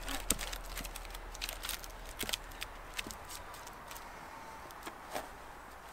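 Scattered light knocks and scrapes of a sawn wooden log being shifted and set in place on a stump.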